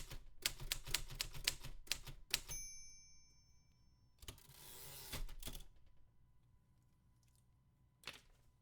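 Manual typewriter: a quick run of keystrokes, then the end-of-line bell rings once, followed by a rushing sweep of about a second and a half as the carriage is returned.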